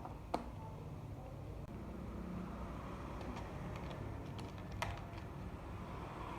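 A few sharp light clicks and taps from small hard objects being handled, the clearest about a third of a second in and again near five seconds, over a low steady hum.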